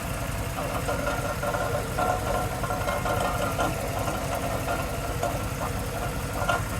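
2002 Cadillac Escalade EXT's V8 engine running steadily, making the unexplained noise the owner is trying to trace. The owner's partner takes it for the transmission, though the truck drives fine.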